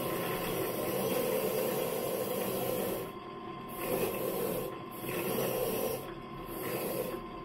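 Bench drill press running with a wire cup brush in the chuck, a steady hum under it, while an old bolt held in locking pliers is pressed against the spinning brush to scrub it clean. The scratchy hiss of wire on metal breaks off briefly three times as the bolt is lifted away and turned.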